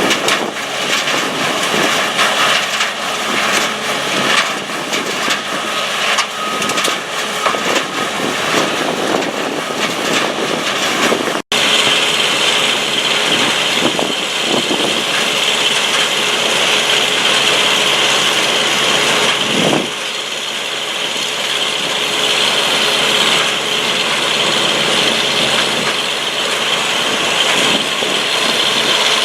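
Portable trommel screening plant running steadily: an engine and conveyors going, with rattling. The sound breaks off for an instant about eleven seconds in and resumes with a stronger hiss.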